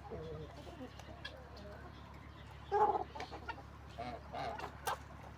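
Poultry clucking and calling in short, separate calls, the loudest about three seconds in.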